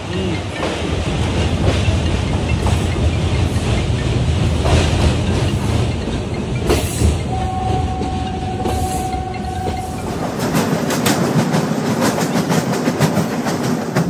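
Passenger train running, heard from an open coach doorway: a steady rumble with the wheels clattering over the rail joints. A steady high tone sounds for about three seconds midway, and the clicking comes quicker and sharper near the end.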